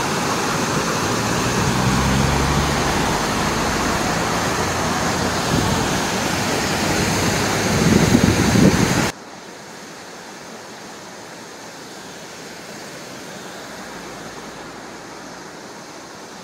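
Waterfall, a steady rush of falling water. About nine seconds in it cuts off abruptly to a quieter steady rush.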